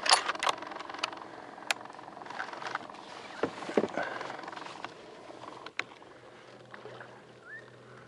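Scattered knocks and clatter of a kayak and its paddle, busiest in the first second, with a few single knocks after that. A faint steady hum comes in about five seconds in.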